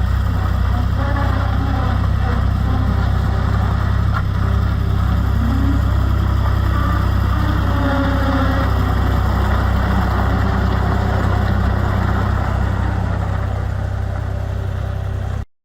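New Holland L785 skid steer's diesel engine idling steadily with a deep, even hum, stopping abruptly near the end.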